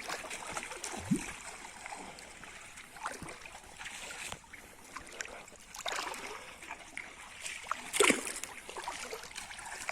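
Pond water splashing and sloshing around people wading and hauling a fishing net, in irregular splashes with a sharper splash about eight seconds in.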